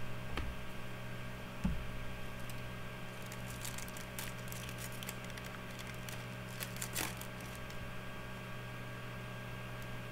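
Trading cards and foil pack wrappers being handled: scattered light crinkling and clicks, with a soft thump about a second and a half in, over a steady electrical hum.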